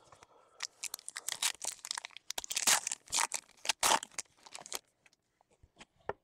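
A trading-card pack's foil wrapper being torn open and crinkled: a quick run of sharp crackling and tearing for about four seconds, followed by a few faint clicks.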